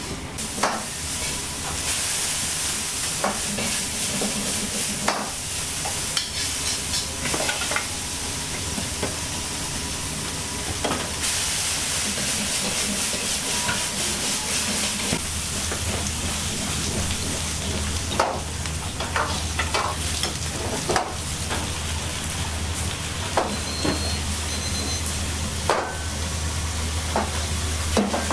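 Stir-frying in a wok over a gas burner: food sizzling steadily, with a metal ladle clanking and scraping against the wok now and then. Louder surges of sizzling about two seconds in and again around twelve seconds, over a low steady hum.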